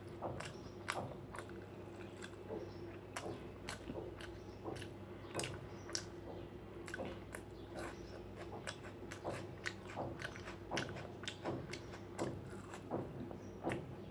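A person chewing food close to the microphone, with frequent short wet mouth clicks and smacks, about two or three a second, over a steady low hum.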